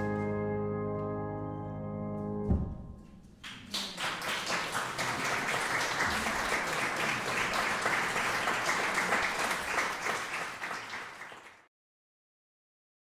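A grand piano's final chord ringing and fading, damped off about two and a half seconds in, then an audience applauding steadily until the sound cuts off suddenly near the end.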